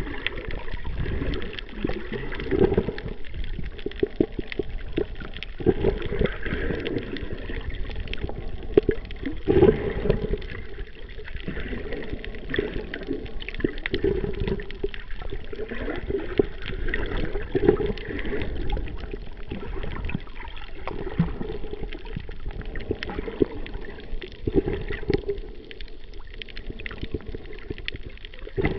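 Muffled sloshing and gurgling of water, heard through a camera held underwater, with irregular swells and many short clicks.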